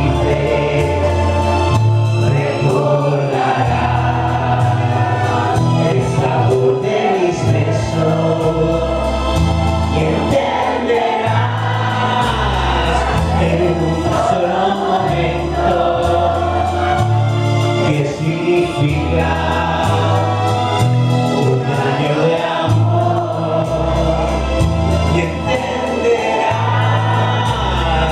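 A song with singing voices over a bass line that steps from note to note every second or two.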